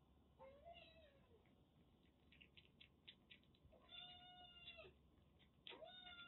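Kitten mewing three times while it eats, each a short call that rises then falls in pitch, with faint clicking from its eating in between.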